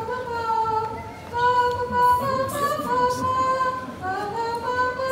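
A girl singing into a handheld microphone, a melody of long held notes.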